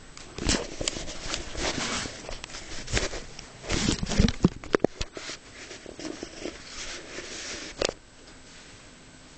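Close rustling and scratching with soft knocks and clicks for several seconds, sharpest around the middle, with one last sharp click before it stops.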